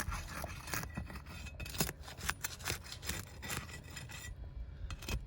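Irregular scraping and sharp clicks of a hand tool working under brittle Atlas Chalet asphalt shingles to pull their nails.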